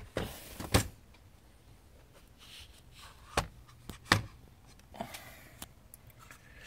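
Plastic HP Pavilion 15 laptop being handled and its lid opened: about seven sharp knocks and clicks scattered over several seconds, the loudest just under a second in.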